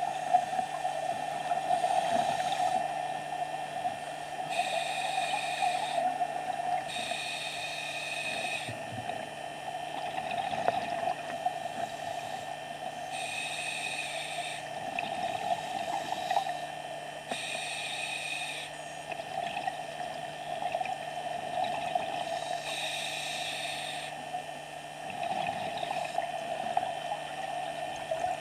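A diver breathing through a scuba regulator underwater, a hiss about every four to five seconds over a steady hum.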